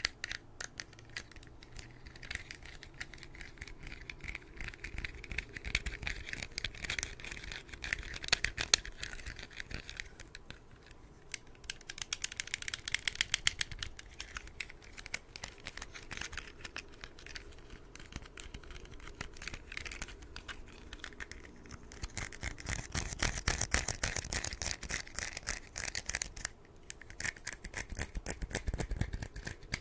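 Small toy car handled close to the microphone: its wheels and plastic body give runs of rapid clicking and rattling ticks that come and go in waves.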